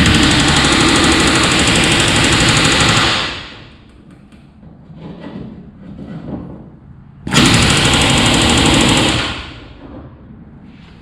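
Pneumatic rivet gun hammering aluminium rivets into sheet-aluminium boat hull against a tungsten bucking bar, in two bursts of rapid blows: one of about three seconds, then a shorter one of about two seconds after a pause.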